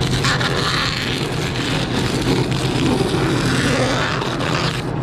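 Vertical band saw running and cutting through a rubber exhaust hanger. A steady motor hum sits under dense cutting noise, which stops abruptly near the end as the cut finishes.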